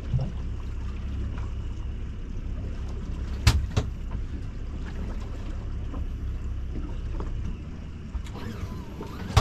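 One outboard motor running at low speed in gear, a steady low rumble, as it swings the boat around. A single sharp knock about three and a half seconds in.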